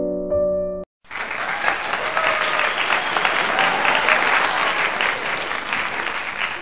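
Piano music stops abruptly just under a second in; after a brief gap, a crowd applauds steadily.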